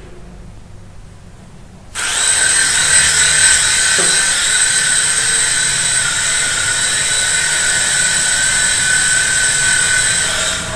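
A small electric toy RC helicopter's rotor motors start suddenly about two seconds in with a steady high-pitched whine, running on as it takes off and flies with a light paper envelope slung beneath it.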